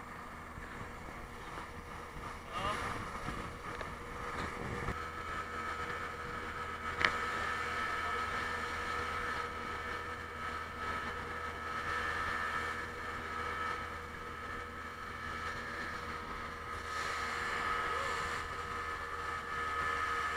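Speedboat engine running at speed with a steady whine, over rushing water and wind. A single sharp knock comes about seven seconds in.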